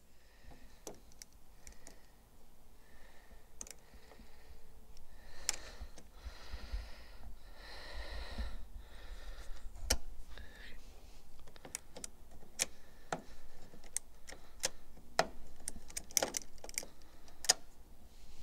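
Scattered sharp clicks and light metal rattles from a homemade locking-pliers (vise grip) door-skin tool being handled and fitted onto the edge of a car door. There is a stretch of soft rustling about halfway through.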